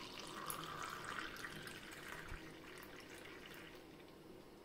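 Thick chocolate milkshake poured from a mixer-grinder jar into a tall glass, a faint steady splash of liquid filling the glass that thins out in the second half as the pour slows.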